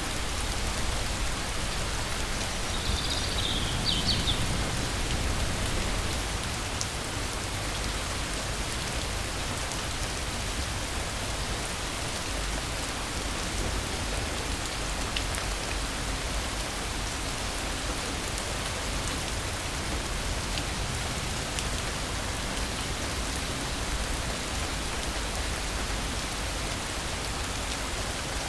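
Steady rain falling, a dense even patter with no thunder. A brief high chirp is heard about three seconds in.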